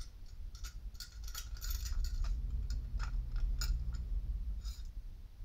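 Small clicks and light scrapes from a metal fuel tube and its plastic fitting being turned and handled. A low rumble sits beneath them from about two seconds in until near the end.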